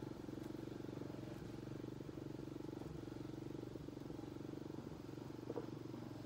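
A small engine running steadily at a constant speed, with a brief knock near the end.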